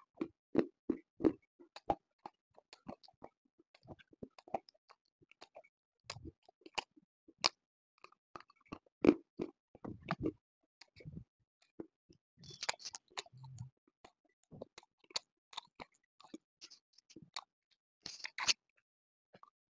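Close-miked biting and chewing of hard pieces of black slate: sharp, separate crackles and snaps as the pieces break between the teeth, with two denser, louder crunching bites, one about two-thirds through and one near the end.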